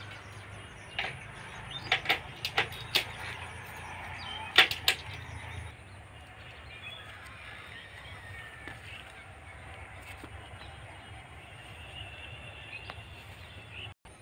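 Outdoor ambience: a handful of sharp clicks or taps in the first five seconds over a low steady hum, which drops away about six seconds in. After that comes a quieter background with a few faint bird chirps.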